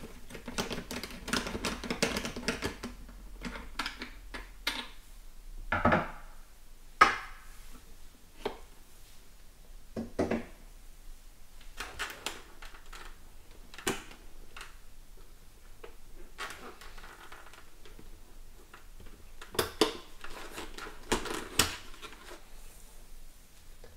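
Hard plastic clicks, knocks and light rustling as a GoPro, its mount and a microphone are worked loose and pulled off a motorcycle helmet's chin bar by hand and screwdriver, with a handful of louder knocks spread through.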